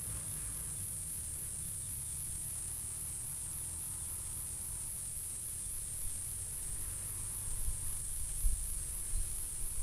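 Insects trilling with a steady, high, evenly pulsing buzz, over a low rumble, with a few soft low knocks near the end.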